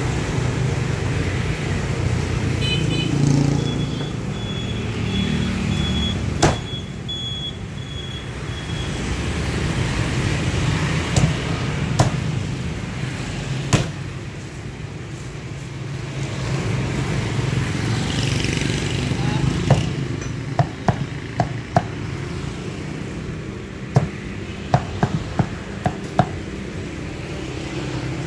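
Cleaver chopping crispy-skinned roast pork on a thick round wooden chopping block: single sharp knocks every few seconds, then a quicker run of chops in the last several seconds. Steady rumble of street traffic and passing motorbikes underneath.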